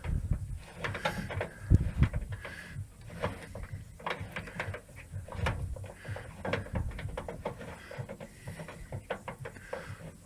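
Irregular metallic clicks and knocks of a hand tool working loose the bolts that hold a microwave oven's magnetron.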